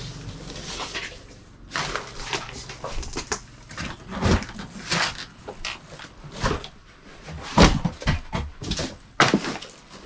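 Footsteps and scuffs on a debris-strewn floor, with irregular knocks and clatters of junk being bumped or shifted, roughly one a second, the loudest a little after the middle and near the end.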